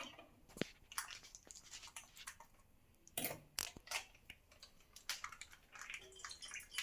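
Scattered light clicks and taps of kitchen vessels being handled, with one louder knock about three seconds in.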